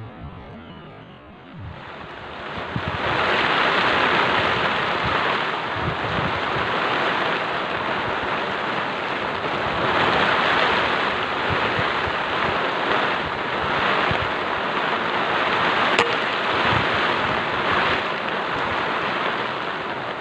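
Steady rushing noise of heavy rain pouring down, starting about two seconds in, with a single sharp click late on.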